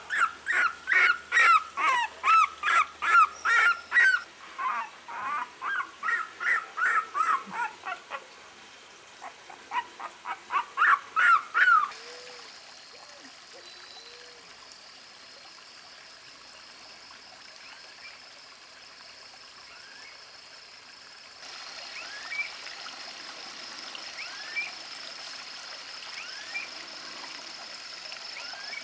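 A dog yelping in quick runs of short, high-pitched cries, two to three a second, which stop about twelve seconds in. After that a steady high-pitched hum and faint trickling water, a little louder from about two-thirds of the way through.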